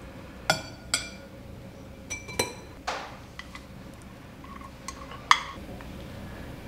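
Kitchenware clinking against a glass mixing bowl as tofu noodles are tipped in from a metal mesh strainer and sliced onion is slid off a ceramic plate with chopsticks: several sharp, ringing clinks, the loudest about five seconds in.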